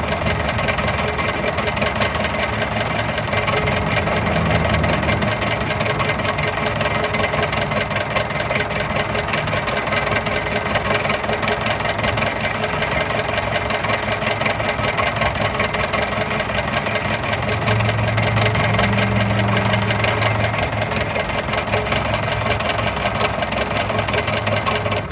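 1940s car engine running steadily at idle, a fast even pulse of firing strokes. It begins to die away right at the very end as it is switched off.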